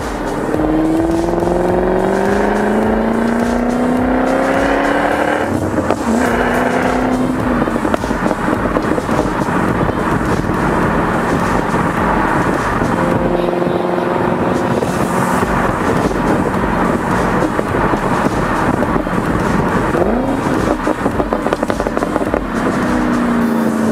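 Supercharged 5.0-litre V8 of a 2012 FPV GT 335, still on its stock rear mufflers, running under load while driving. The engine note climbs for about five seconds, drops at a gear change and climbs again, then holds steadier. It eases off around twenty seconds in and rises again near the end.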